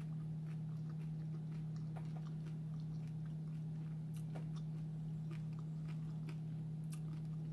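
A person chewing a seafood egg roll close to the microphone: scattered soft clicks and small crunches of chewing. A steady low electrical hum runs underneath and is the loudest sound.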